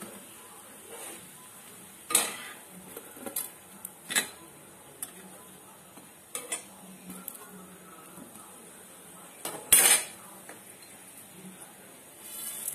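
Steel ladle and steel plate clinking and scraping against a metal kadai of noodles in boiling masala water. A handful of irregular metal clinks, the loudest a sharp clank near the end.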